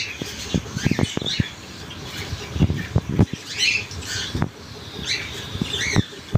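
Caged cockatiels and other pet birds chirping and squawking in short calls, several times, over scattered clicks and knocks from handling in the aviary room.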